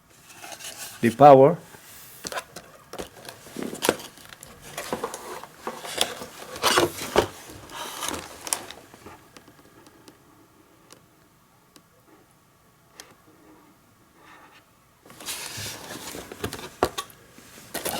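Hands handling the parts and accessories of a newly unboxed radio amplifier on a table: scattered clicks, light knocks and rustling, dying down for a few seconds past the middle and picking up again near the end.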